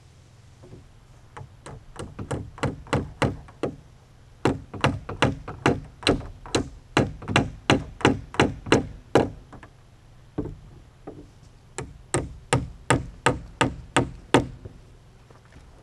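Hammer blows in three quick runs, about three strikes a second; the middle run is the longest.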